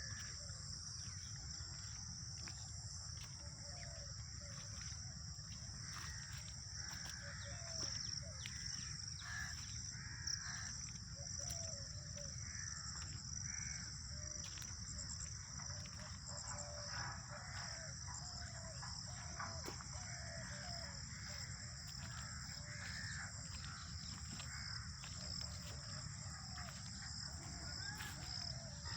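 Many birds chirping and calling, short calls scattered all through, over a steady high-pitched insect drone and a low background rumble.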